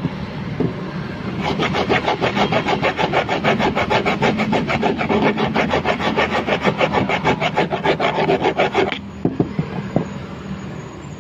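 Fine metal file rasping back and forth on the aluminium body of a carburetor in quick, even strokes, about five or six a second, taking off the roughness left after the bore was reamed. The filing starts about a second and a half in and stops abruptly about two seconds before the end.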